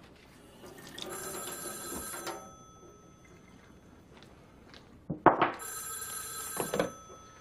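Corded landline telephone ringing twice, each ring lasting a little over a second, with a short, loud sound just before the second ring.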